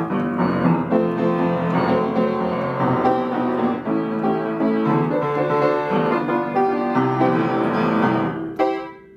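Piano music: a run of notes that ends in a final chord, which dies away near the end.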